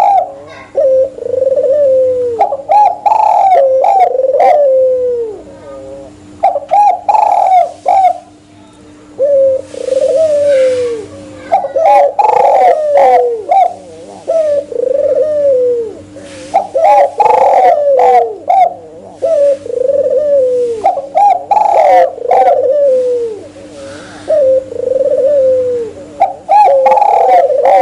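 Spotted doves and albino Barbary doves cooing. Their coos repeat and overlap in phrases of a few seconds, with short gaps between.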